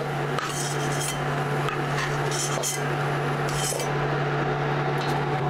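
Steel slotted spoon scraping and clinking against a stainless-steel kadhai as fried raisins are lifted out of hot oil, in a few short scrapes. Under it the oil sizzles gently and a steady low hum runs throughout.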